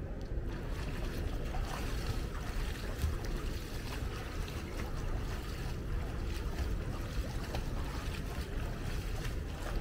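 Wind buffeting the microphone, with the light splashing and lapping of a swimmer stroking through pool water.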